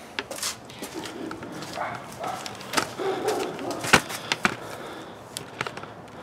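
A run of scattered knocks and clatters from handling gear, the sharpest knock about four seconds in.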